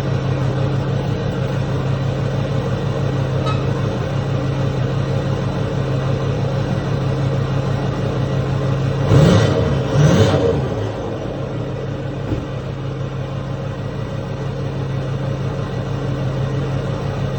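2009 Ford F-550's 6.4-litre Power Stroke V8 diesel idling through a freshly installed EGR/DPF-delete exhaust, with two quick throttle blips about nine and ten seconds in.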